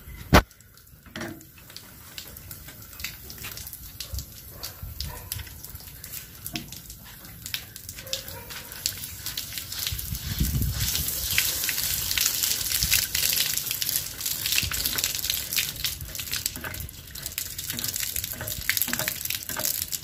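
Water splashing and gushing from a gas geyser's hot-water pipe union as it is loosened with a pipe wrench, with scattered clicks of metal on the fitting. A sharp click about half a second in is the loudest sound. The water grows heavier from about ten seconds in. The joint is opened to bleed trapped air from the line, the cause of no hot water at the taps.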